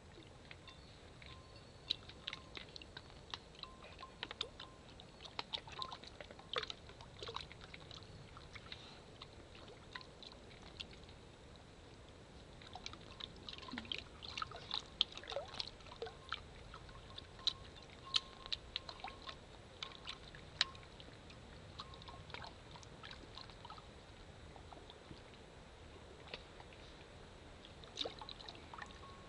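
Papillon puppies pawing at and lapping water in a glass vase: small irregular splashes and drips, coming in busy spells with quieter stretches between.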